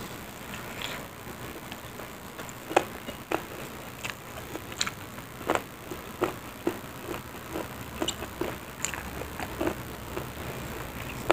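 Close-up mouth sounds of a person eating rice, stir-fried water spinach and omelette by hand: chewing and lip-smacking, heard as irregular short smacks and clicks.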